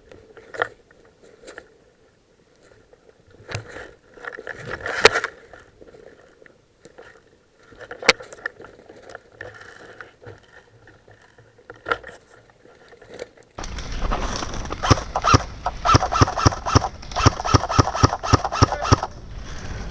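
A player's footsteps and gear rustling on rough ground: a few scattered steps and knocks at first, then, about two-thirds of the way through, a sudden steady run at roughly three steps a second.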